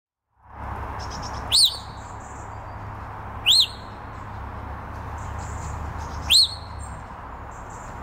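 African grey parrot giving three short, sharp whistled chirps, each rising and falling in pitch, a few seconds apart, over steady background noise.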